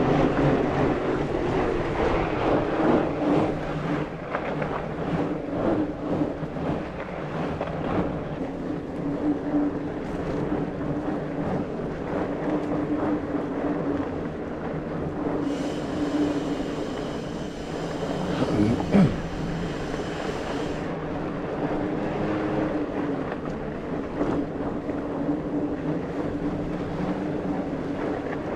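Mountain bike being ridden along a dirt trail: a steady rolling drone from the tyres and bike, with one sharp knock about nineteen seconds in.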